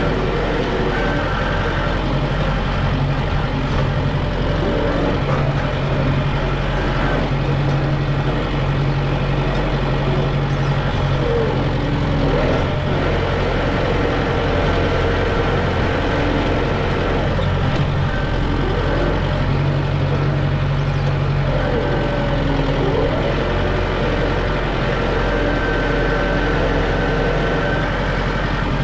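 A heavy diesel engine running steadily under load, its note shifting up and down a few times.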